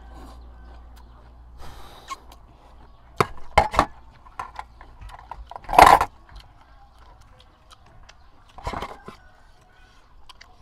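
Fork and spoon clinking and scraping on a steel serving tray and sauce bowl while eating, with scattered short knocks; the loudest comes just before six seconds in, another near nine seconds.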